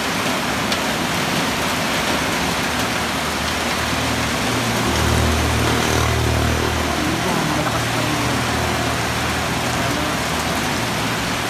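Heavy typhoon rain pouring steadily in strong wind. A low rumble swells about five seconds in and holds for a few seconds.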